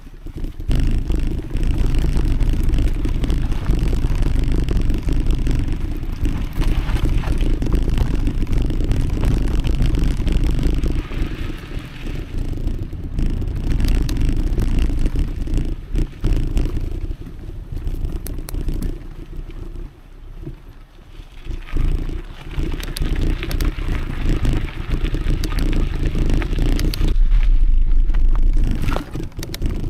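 Mountain bike riding along a dirt trail: tyres crunching and scraping over the dirt with scattered clicks and rattles from the bike, under a heavy low rush of wind on the microphone. The noise drops briefly about two-thirds of the way through.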